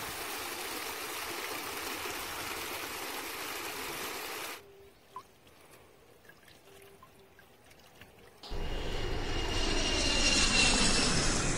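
Water pouring from a small stone waterfall into a garden pond, splashing steadily. It cuts off suddenly to near silence about four and a half seconds in. About eight and a half seconds in, a small single-engine propeller plane is heard flying over, growing louder toward the end.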